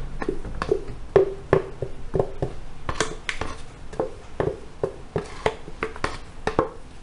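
Wooden stick knocking and scraping against the inside of a plastic blender jug: an irregular run of sharp taps and knocks as a thick mixture is scraped out of it.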